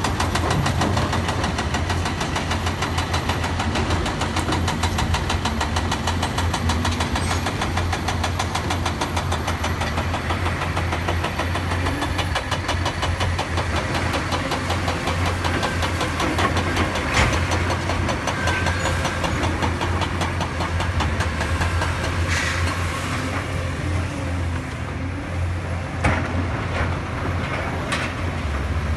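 Diesel engine of a tracked excavator running steadily under load while digging, a deep drone with a fast even pulse. A few sharp knocks come in the second half.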